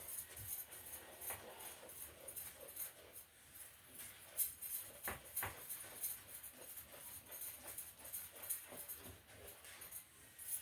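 A spatula stirring a flour-and-club-soda batter in a bowl: irregular scrapes and light clicks against the bowl, with a couple of sharper knocks about five seconds in.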